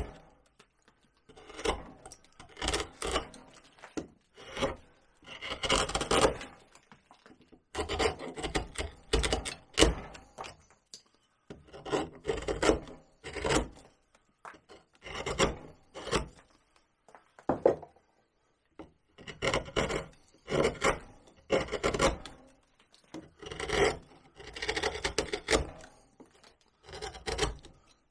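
Sharp hand carving tools cutting cottonwood bark: short scraping, slicing strokes in clusters of a few cuts, with brief pauses between the clusters.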